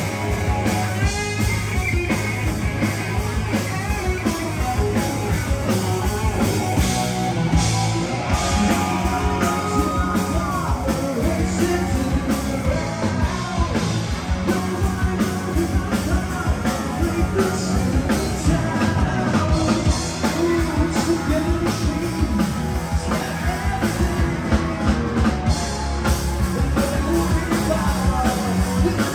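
Rock band playing live, with singing over a steady drum beat.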